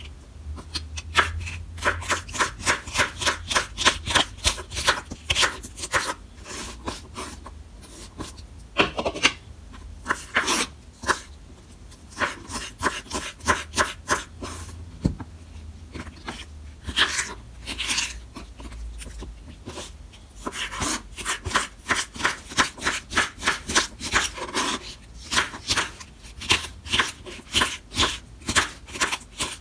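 A knife cutting young prickly pear (nopal) cactus paddles on a wooden cutting board: quick cuts, about four or five a second, in runs with short pauses between them.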